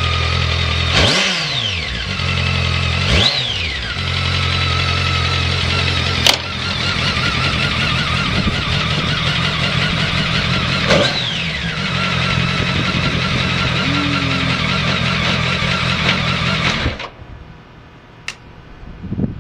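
BMW K1200S inline-four motorcycle engine idling, blipped three times so it revs up and falls straight back, then switched off near the end. The seller lists the engine as running with no abnormal noise.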